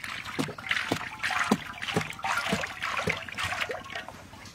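Cooking oil poured from a plastic jug into a large metal wok, splashing and glugging about twice a second, each glug falling in pitch as air gulps back into the jug.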